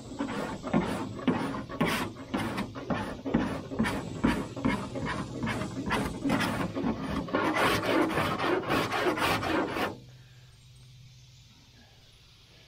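Cheese-grater body file rasping over partly cured body filler in quick, repeated scraping strokes, stopping about ten seconds in.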